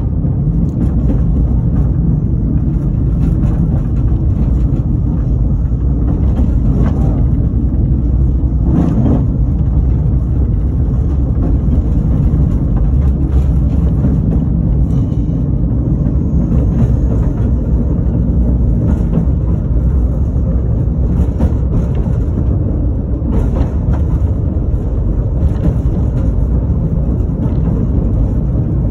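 A narrow-gauge heritage train's carriage running along the track, heard from its open rear platform: a steady low rumble of wheels on rail, with a few faint knocks.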